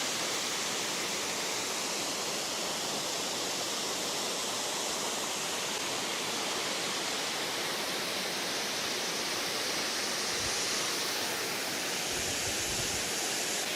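Waterfall pouring steadily, a constant rush of falling water, with a few faint low bumps near the end.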